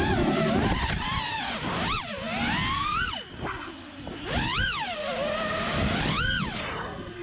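FPV freestyle quadcopter's brushless motors and props whining, the pitch sweeping sharply up and down several times as the throttle is punched and chopped through the flight. Heard close up, with air rushing over the onboard camera's microphone.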